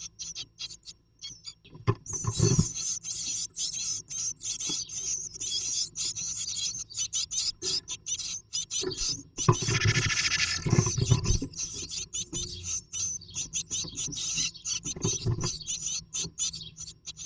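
Great tit moving about inside a nest box: rapid scratching and rustling of claws in the nesting material, with a few dull bumps against the box.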